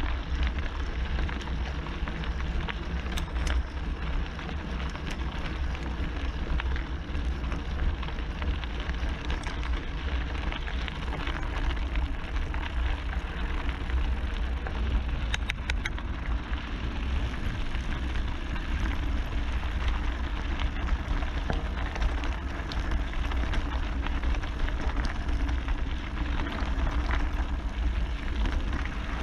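Mountain bike rolling fast down a loose gravel track: a steady rush of tyre noise over stones under a heavy wind rumble on the microphone, with scattered sharp clicks and rattles from gravel and the bike.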